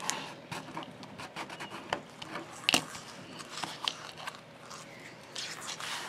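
Bone folder rubbing and scraping along a folded paper bag, pressing a glued flap flat, with hands sliding over the paper. Scattered light taps and clicks, the sharpest nearly three seconds in.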